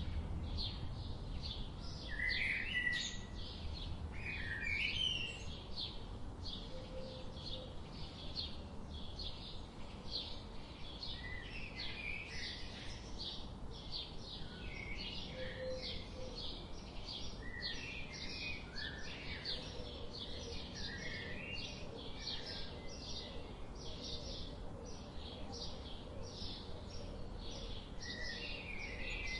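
Songbirds chirping: a steady run of short, high chirps about two a second, with occasional lower whistled notes mixed in over a soft outdoor background.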